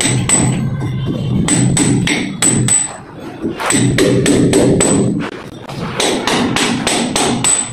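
Hammer blows in quick runs of about three a second with short pauses, each strike giving a short high ring.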